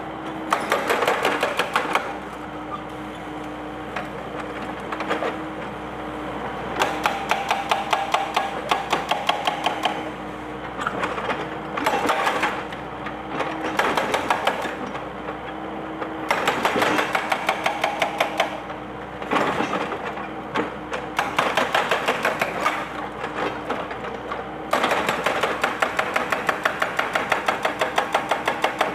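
Excavator-mounted hydraulic breaker hammering concrete in bursts of rapid blows a few seconds long, stopping briefly between bursts, over the excavator's steady engine hum.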